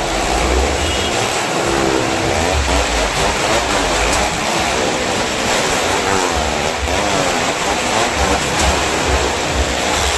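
Car and motorcycle engines running hard as they circle the wooden wall of a well-of-death pit, their pitch rising and falling again and again as each vehicle sweeps past, over a continuous rumble of tyres on the planks.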